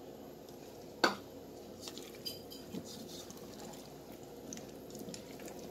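A silicone spatula stirring diced chayote in an aluminium pot with a little water, soft stirring and faint ticks, with one sharp knock against the pot about a second in.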